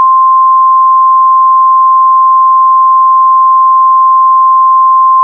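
Loud, unbroken single-pitch electronic alarm tone, the steady warning tone of an emergency alert broadcast.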